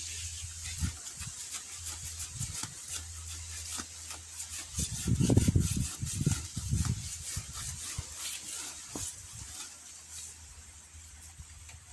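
Rustling and crackling of leaves and stems being handled close to the microphone, with a few low dull bumps around the middle.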